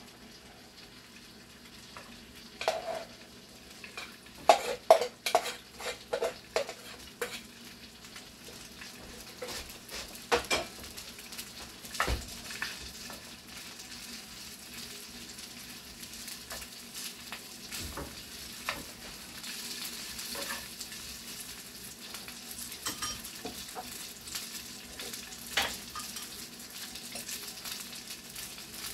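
Cooked rice frying in a pan on a gas stove. There are knocks and scrapes of utensils against the pan over the first several seconds and a few more later, then a steady sizzle that grows stronger as the rice is stirred with a spatula.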